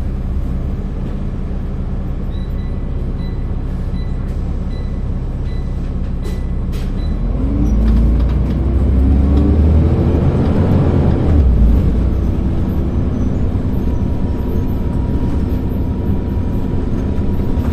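The Volvo D10A-285 six-cylinder diesel of a Volvo Super Olympian double-decker bus, heard from the upper deck. It runs steadily, then about halfway through it revs up and gets louder as the bus accelerates. The pitch rises, drops back as the ZF automatic gearbox shifts up, and the engine settles into a steady pull.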